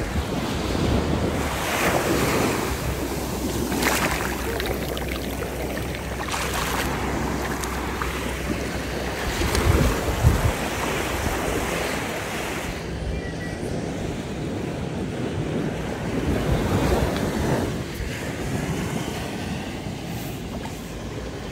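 Small sea waves washing up over wet sand at the shoreline, surging every few seconds, with wind buffeting the microphone.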